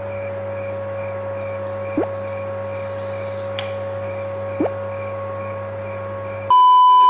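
A steady machine hum with a constant mid-pitched tone, broken twice by a short rising chirp. A loud, pure, steady beep starts about six and a half seconds in.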